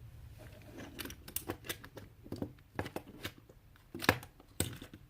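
Scattered light clicks, taps and rustles of small objects being handled, with two sharper knocks near the end.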